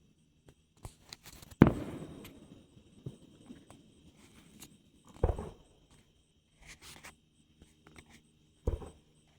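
Fireworks going off: a sharp bang with a rumbling tail about one and a half seconds in, then two smaller bangs a little past five seconds and near the end, with faint pops between.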